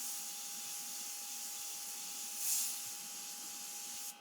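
Airbrush spraying white paint: a steady hiss of air through the nozzle, swelling briefly about halfway through and cutting off suddenly near the end.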